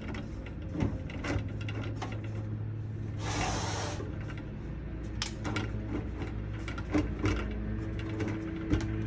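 Diorama wall pieces being handled and fitted together: scattered clicks and knocks as parts are pushed into place, with a short scraping rush about three seconds in. A steady low hum runs underneath.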